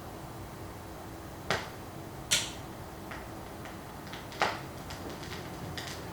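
Quiet room tone with a faint steady hum, broken by three sharp clicks or taps, the first about a second and a half in and the last just past the middle, followed by a few fainter ticks near the end.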